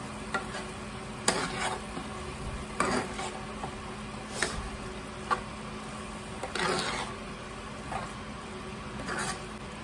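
Metal spoon stirring a prawn and sweet potato leaf curry in an aluminium pot, scraping and knocking against the pot's side about seven times, unevenly.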